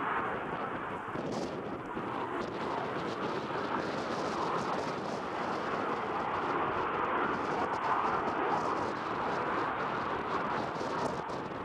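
Saab JAS 39 Gripen fighter's single Volvo RM12 turbofan heard from the ground during its display pass: a steady jet noise that swells slightly about eight seconds in.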